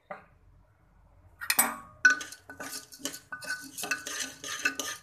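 A metal spoon stirring toor dal in an aluminium pressure cooker, scraping and clinking against the pot in quick, uneven strokes. It starts about a second and a half in with a sharp clatter.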